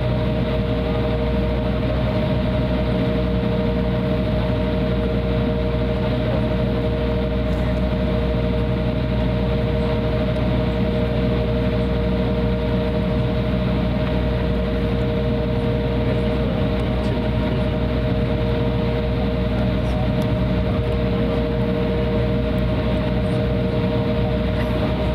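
Cabin noise of an Embraer 175 taxiing, heard from a seat behind the wing: its General Electric CF34-8E turbofans idling with a steady whine over a low, even rumble.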